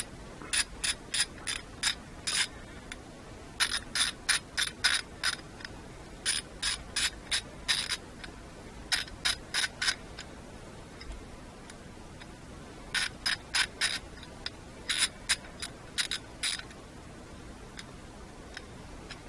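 Ratchet handle from an EPAuto 45-piece socket set clicking in short runs of rapid pawl clicks as it is swung back and forth, with pauses between runs. Freshly greased and with its tight screw loosened, it now ratchets freely.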